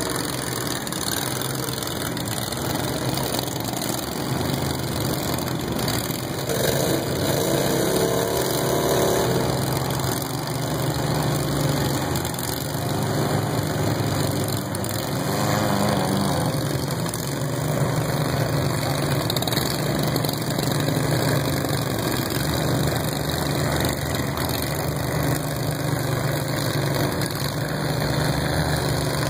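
Several riding lawn mower engines running, the pitch rising and falling now and then as they drive.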